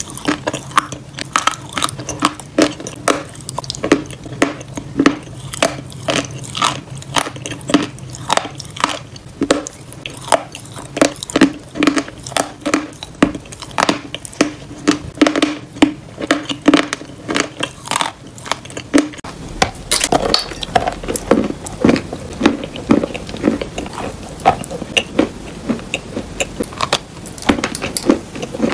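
Close-up crunching and chewing of dry edible chalk: bites and chews crumble it in the mouth, in short, sharp crunches about two a second.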